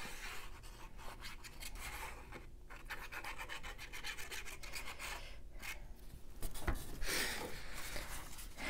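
Fine metal tip of a squeeze glue bottle scratching and rubbing across black cardstock as the glue is drawn on in a zigzag. Near the end, sheets of cardstock are handled and slide against each other.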